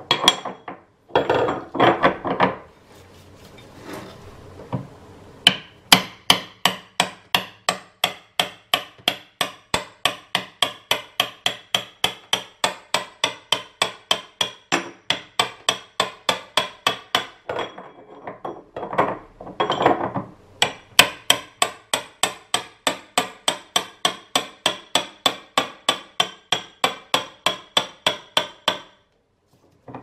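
Hammer blows on a 38 mm box-end wrench fitted to the drum nut at the bottom of a washing machine tub, at about three a second in long even runs, each with a short metallic ring, hammered to break the tight nut loose. Short spells of metal clatter come near the start and about two-thirds of the way through.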